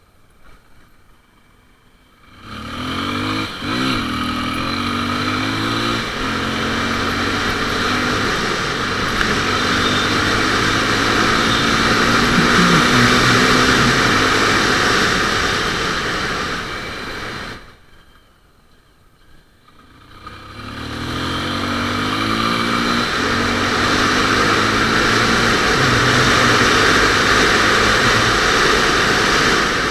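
Honda XR250 Tornado's single-cylinder four-stroke engine pulling away and accelerating through the gears, the pitch climbing in steps, with a strong rush of wind over a helmet-mounted microphone. About two thirds through it falls away to a quiet lull, then pulls up through the gears again.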